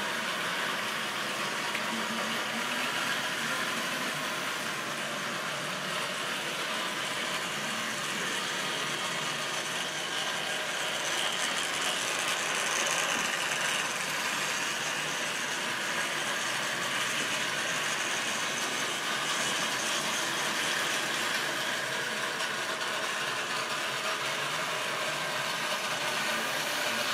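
Model railway train running past: the wheels of a long rake of small model wagons clattering over the track, with the locomotive's small electric motor and gears whirring, in a steady continuous rattle.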